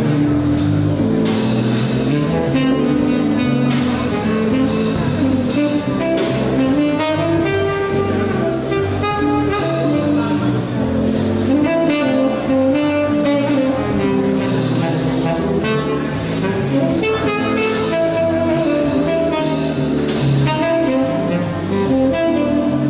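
Live jazz trio: a saxophone plays a moving melody over keyboard and drum kit.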